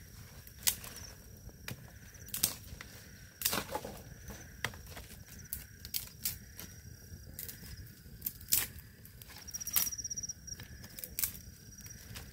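Machete chopping sticks of firewood against a wooden stump: a dozen or so sharp chops at an uneven pace, roughly one a second.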